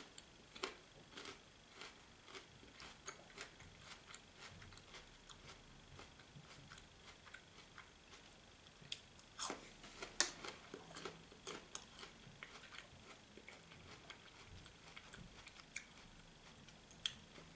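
Faint chewing and eating sounds: scattered small clicks and mouth noises, with a few louder ones about ten seconds in.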